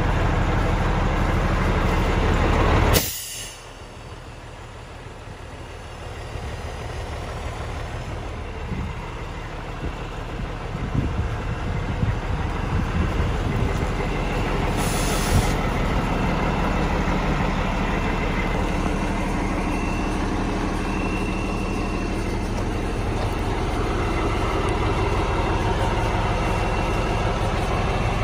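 Heavy diesel engine of a 2000 International 9200i dump truck running at idle, a steady low drone. About three seconds in, a sharp burst of noise comes and the drone drops away, then builds back over several seconds. A short hiss of air comes about halfway through.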